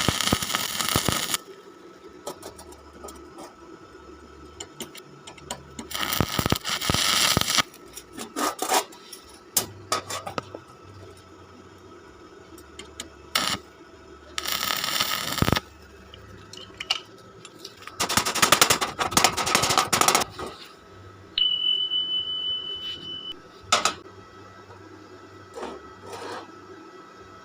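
Electric arc welding on iron rod: several short bursts of arc crackle, each a second or two long, as the joint is tacked, with clicks and scrapes between. A steady high beep sounds for about two seconds past the middle.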